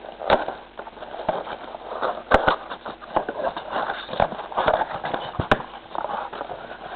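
Cardboard trading-card blaster box being pried and torn open by hand: crinkling, scraping and tearing, with several sharp clicks.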